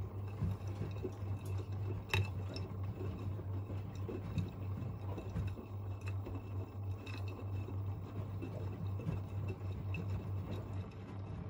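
Two washing machines, an AEG Öko-Lavamat 88840 and a Miele Novotronic W 985, running an easy-care wash: water sloshing in the drums over a steady low hum, with scattered small clinks.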